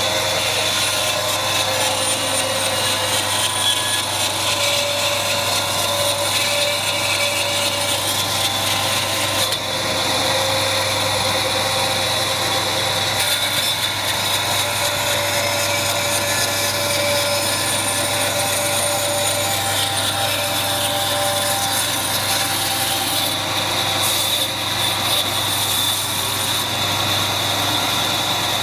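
A woodworking power tool running steadily and working on wood, over a constant low hum.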